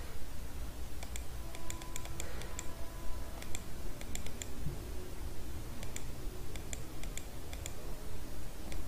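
Irregular clicking of computer keys and mouse buttons while a CNC program is edited, several clicks a second in scattered runs, over a low steady hum.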